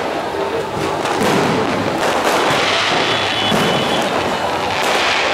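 Fireworks going off, many bangs and crackles overlapping without a break.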